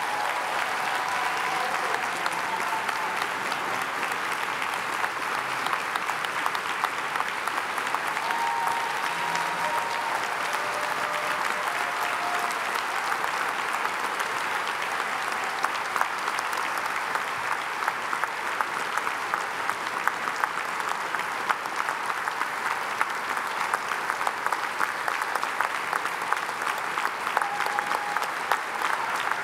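Large audience clapping in a long, steady ovation, dense and unbroken.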